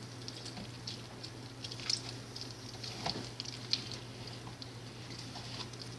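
Hands squeezing and pulling homemade clear-glue borax slime: faint scattered sticky clicks and squelches, a few slightly louder about two and three seconds in.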